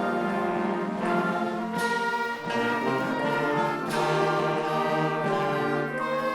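Instrumental ensemble music led by brass, playing slow, held chords that change every second or two.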